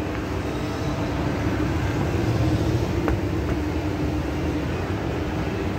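SJEC FES escalator with steel steps, running downward: a steady machine hum with one held tone over a low rumble. There are a couple of faint clicks about three seconds in.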